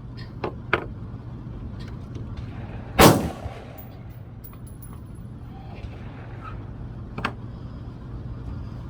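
Gunshots on a shooting range: one loud close shot about three seconds in, with a short ringing tail, and fainter shots around it, under a steady low hum.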